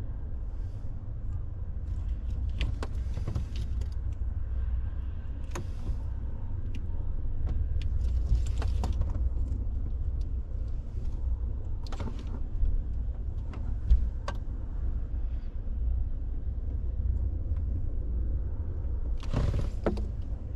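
Scattered clicks, knocks and light clatter of hands and tools working on car wiring and parts, over a steady low rumble.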